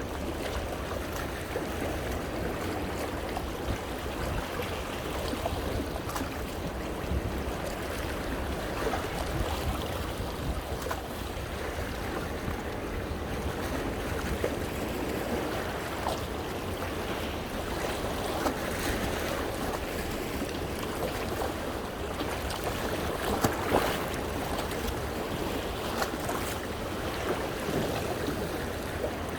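Sea waves washing in over coastal rocks, with water splashing and sloshing among the rocks in small swells and crackles.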